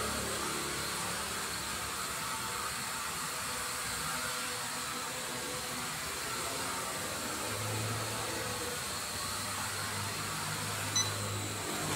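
Small foldable quadcopter drone whirring steadily as its propellers keep it flying low; a short high beep sounds near the end.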